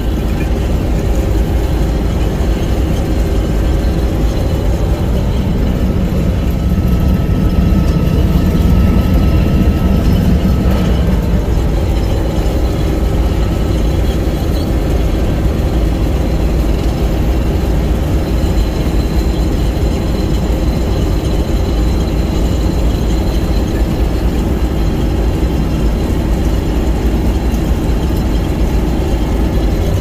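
Combine harvester running steadily while harvesting, heard from inside the cab: a constant low engine and threshing drone. It grows slightly louder for a few seconds about a quarter of the way in.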